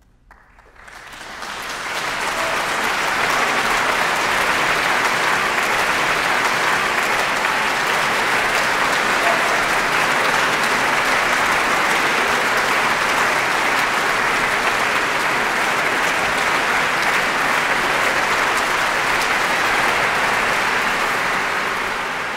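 Large audience applauding at the close of a performance. The applause starts from near silence, builds over the first two seconds, and then holds steady, easing slightly near the end.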